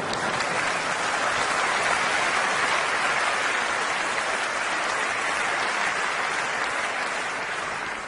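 Large audience applauding steadily in a hall, easing off slightly near the end.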